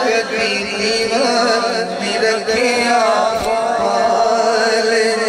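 A man singing a Punjabi naat, a devotional song, in long, wavering, drawn-out phrases.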